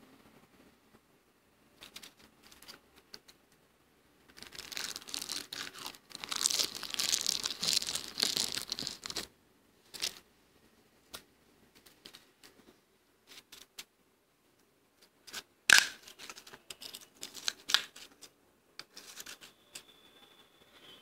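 Soft freezer frost being crunched and chewed: a dense run of soft, crackly crunching lasting about five seconds, then scattered smaller crunches and clicks, with one sharp, loud crack about three-quarters of the way through.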